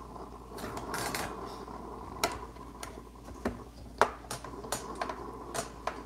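Scattered light clicks and taps, about a dozen irregularly spaced, from hands handling things at an espresso machine's group head, with a brief rustle near the first second.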